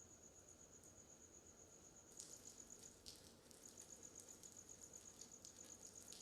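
A cricket chirping faintly at night: an even run of rapid, high-pitched pulses that pauses briefly about three seconds in.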